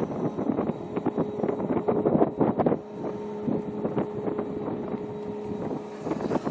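Wind buffeting the microphone, with a steady engine hum setting in about a second and a half in, and a few light knocks.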